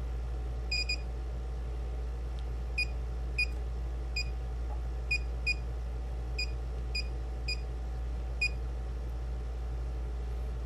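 About a dozen short electronic keypress beeps from bench test equipment, each the same single pitch, coming at uneven intervals as buttons are pressed to step up the test signal's frequency. A steady low hum runs underneath.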